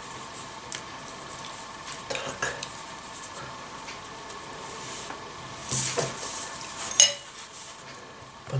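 Hands patting and rolling soft mashed-potato dough on a plastic cutting board: quiet soft rubs and pats over a faint steady hum, with a single sharp click near the end as a knife comes into play.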